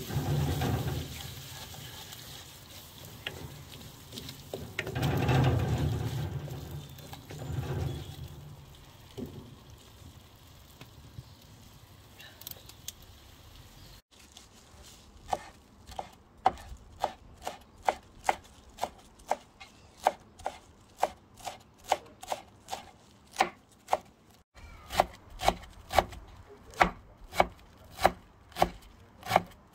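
Wooden spoon stirring sliced peppers and onions in tomato sauce in a pan on a barbecue grill, with uneven bursts of low rumble. About halfway through, a chef's knife starts chopping parsley on a wooden cutting board in sharp, even strokes, about one and a half a second.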